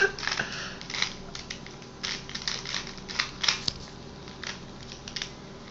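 Rubik's Cube being twisted: irregular plastic clicks and clacks as its layers are turned, some coming in quick runs.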